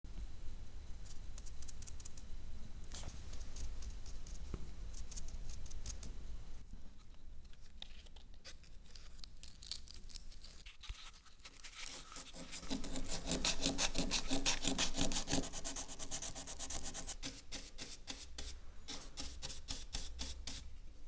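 Sandpaper worked by hand over wood filler on a wooden door, in quick back-and-forth rubbing strokes. The strokes ease off for a few seconds in the middle, then come faster and louder from about twelve seconds in.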